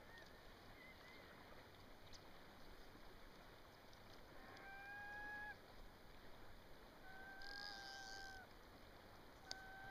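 Three long, level whistled calls, each about a second, spaced a couple of seconds apart, over a faint background.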